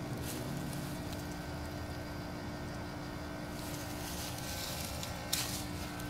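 Trane XB13 outdoor air-conditioning condensing unit running: the condenser fan and compressor make a steady hum with one constant tone over a low rumble. A short knock sounds near the end.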